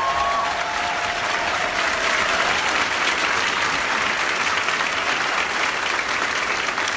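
Audience applauding, with a few long cheers over it in the first couple of seconds.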